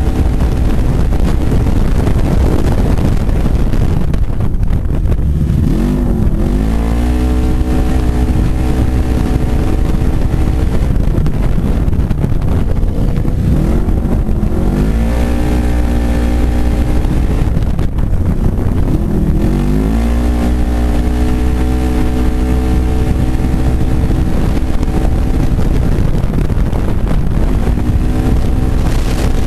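A 900-class side-by-side UTV engine running at race speed, heard from inside the cab under steady loud wind and tyre noise. Three times its pitch climbs and then holds level as it accelerates out of the turns.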